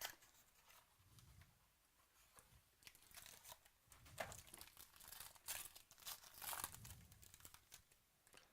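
A trading card pack wrapper being torn open and crinkled by hand, with cards rustling. It is a quick click at the start, then a few seconds of irregular crackling.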